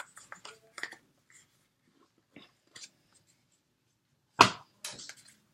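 Packaging being handled and opened by hand: scattered small clicks and rustles, then a loud sharp crackle about four and a half seconds in, followed by a few smaller ones.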